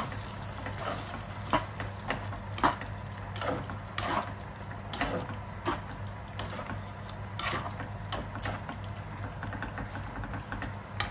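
Thick paneer curry being stirred with a slotted spatula in a non-stick frying pan: irregular wet squelches and scrapes, about one or two a second, over a steady low hum.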